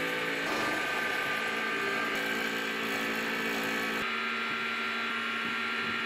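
Steady mechanical whirring and humming of a cable car under way, heard from inside the cabin, with several steady tones through it; the sound shifts slightly about four seconds in.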